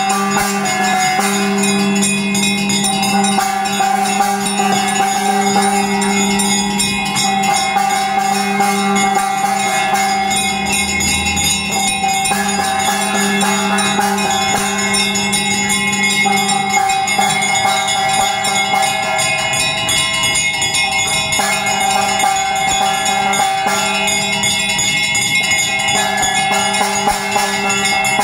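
Puja bells rung rapidly and without a break, a dense metallic ringing with steady sustained tones under the quick strokes.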